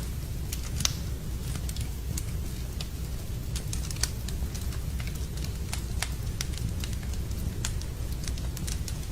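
Wood fire burning in a fireplace, crackling: irregular sharp pops and snaps over a steady low rumble, with the loudest pops about a second and four seconds in.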